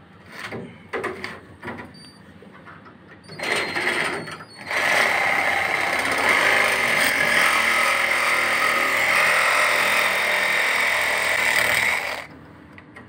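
Small cordless reciprocating saw with a fine-tooth metal blade sawing a thin steel strip. After a few knocks and a short burst about three and a half seconds in, it runs steadily for about seven seconds and stops abruptly near the end. The blade makes slow progress, only about halfway through the metal.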